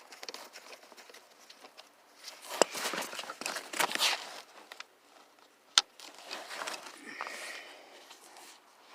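Hands and a screwdriver working under a dashboard: irregular rustling and scraping, with one sharp click a little before the end.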